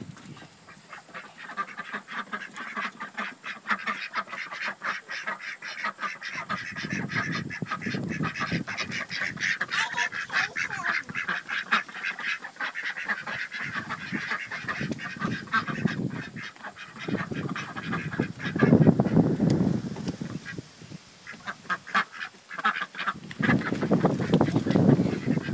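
A flock of domestic ducks quacking and chattering in quick, dense calls, with several bursts of low rumbling noise, the loudest about two-thirds of the way through.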